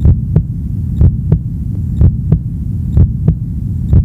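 Heartbeat sound effect: deep double thumps about once a second, a strong beat followed by a weaker one, over a steady low hum.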